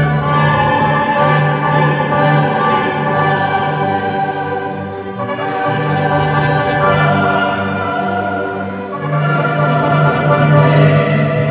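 Classical music with a choir singing over an orchestra, in long held chords.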